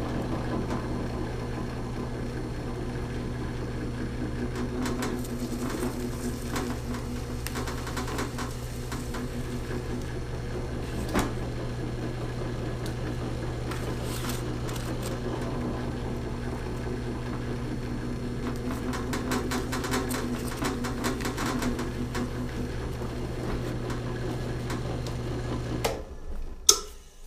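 Porter-Cable PCB660DP floor drill press motor running with a steady, even hum. It shuts off about a second before the end, followed by a sharp click.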